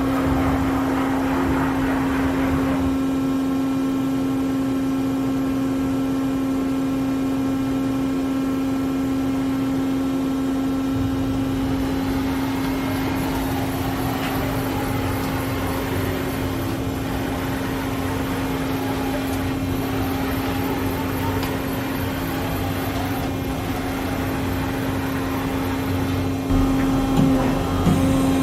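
Doosan Puma MX2500ST CNC mill-turn center running with a steady hum and machine noise. A low rumble and some irregular clunking come in near the end.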